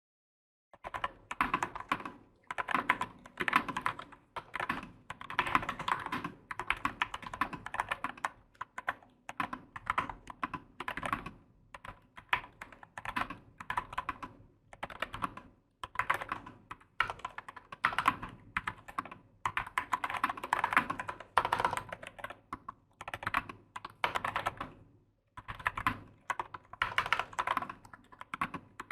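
Typing on a NuPhy Air75 low-profile mechanical keyboard with brown (tactile) switches: runs of quick keystroke clacks in bursts, with short pauses between them, starting about a second in.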